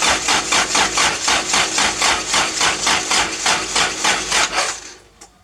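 Starter motor cranking a Toyota 4Y four-cylinder petrol engine in an even rhythm of about five turns a second without it catching, then stopping about three-quarters of the way through. It does not fire because there is no spark: the coil lead was left off after a coil change.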